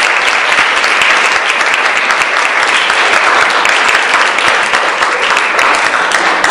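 An audience clapping steadily after a talk, a dense patter of many hands that begins to die away right at the end.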